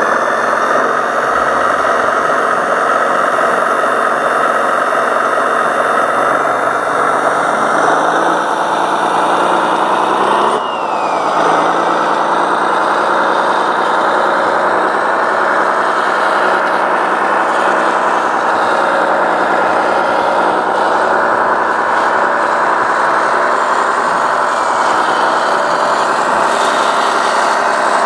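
Radio-controlled model construction truck running with a steady engine-like drone. About ten seconds in, the pitch briefly drops and climbs back.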